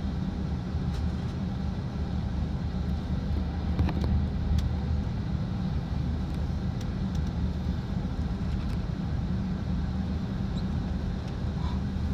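Cabin noise of an Airbus A380 taxiing after landing: a steady low rumble from the engines and the rolling gear, with a few faint clicks.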